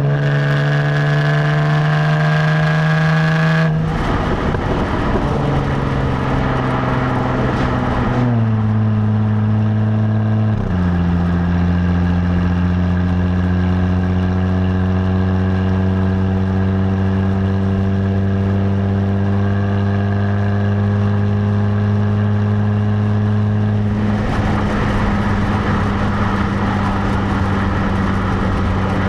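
Stock exhaust of a 2017 Jaguar F-Type, heard at the rear bumper. The engine pulls with a slowly rising note, then the revs drop in three steps over the next several seconds as it shifts up, and it settles into a steady cruising drone. A rushing noise lies over it for a few seconds after the first shift and again near the end.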